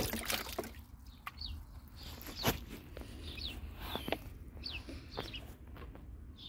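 The tail of a splash as a rock lands in a tub of water at the very start. After it, small birds chirping, short falling calls about once a second, with a few sharp knocks, the loudest about two and a half seconds in.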